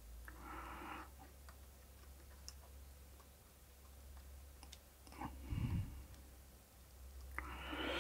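Quiet bench work while soldering small wires: a few faint clicks and soft handling noises over a steady low mains-type hum, with a breath near the end.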